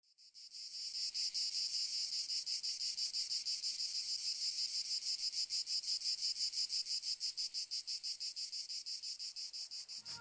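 Crickets chirping in a steady, rapid pulsing trill that fades in over the first second.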